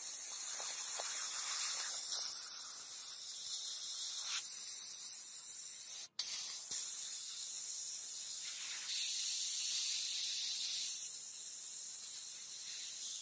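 Compressed-air blast gun hissing steadily as it is played over a steel axe head. It breaks off for an instant about six seconds in.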